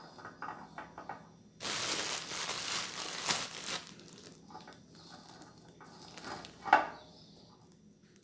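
A clear plastic bag crinkling and rustling as dried moss and an artificial plant are handled into a glass jar. Loudest for about two seconds near the start, then smaller rustles and one sharp crackle near the end.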